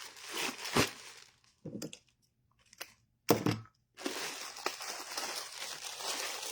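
Ribbon and plastic packaging crinkling and rustling as they are handled. A short quiet gap, then a sharp knock about three seconds in, followed by steady crinkling.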